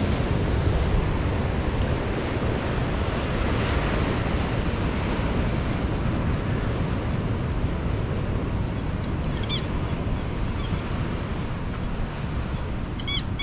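Steady rush of wind on the microphone and ocean surf. A few short bird calls come in about nine seconds in, then a quick run of them near the end.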